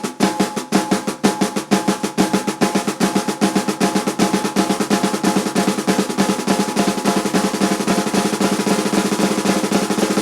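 Swiss Army triplet rudiment (flam, right, left) played at speed on a Love Custom kit's snare drum: a fast, even stream of strokes that runs together like a drum roll, stopping abruptly near the end.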